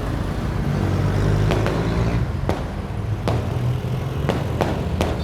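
Fireworks going off: about seven sharp bangs spaced irregularly, over a steady low rumble.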